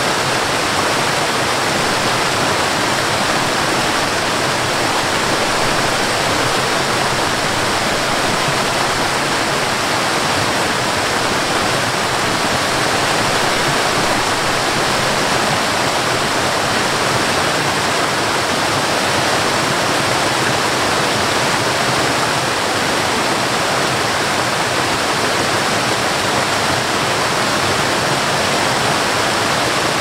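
Waterfall cascading down mossy rock tiers: a steady, unbroken rush of falling water.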